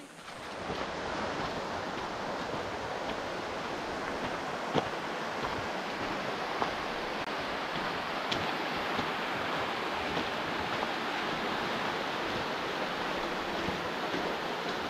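Steady rush of flowing water, an even unbroken roar.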